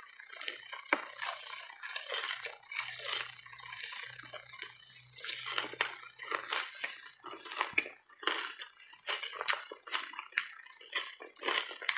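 Reshaped ice coated in matcha and milk powder being bitten and chewed: a run of sharp, crisp crunches as the ice cracks between the teeth, coming faster near the end.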